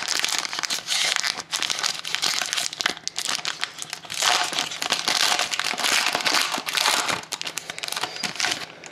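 Foil wrapper of a Panini Titanium hockey card pack crinkling and tearing as it is opened by hand: a dense run of crackles that thins out near the end.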